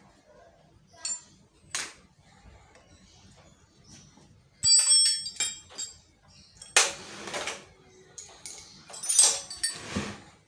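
Metal parts of a Peugeot 406 starter motor handled and fitted together by hand: a few light clicks, then a sharp metallic clink with a brief ring about five seconds in, followed by scraping and knocking of the parts near the end.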